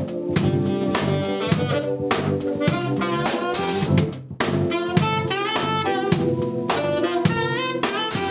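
Funk-jazz band playing live: a saxophone melody over electric bass and a drum kit keeping a steady beat.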